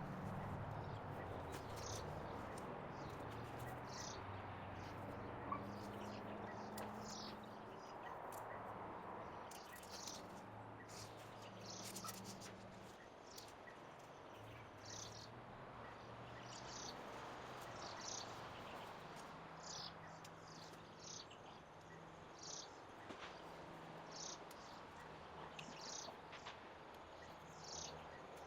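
A bird calling: short high chirps repeated every second or two, over a low, uneven hum.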